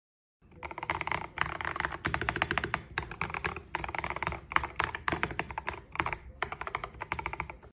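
Fast typing on a Keychron K12 mechanical keyboard: a rapid run of key clicks with a few brief pauses, starting about half a second in.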